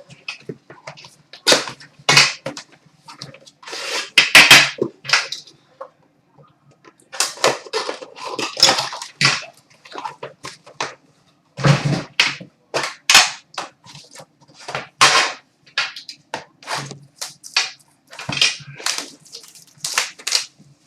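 Packaging of a sealed hockey card box being opened by hand: a long series of irregular crinkling, tearing and snapping noises of plastic wrap and cardboard, with short pauses between them.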